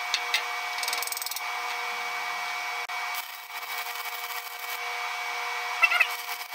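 Stick-welding arc from a 6011 electrode set at about 80 amps, giving a steady crackling hiss as a test bead is run.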